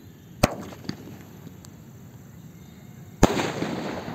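Green Penta sky shot firework: a sharp crack about half a second in and a small pop just after, then a louder bang a little past three seconds as the shell bursts, trailing off in a fading crackle.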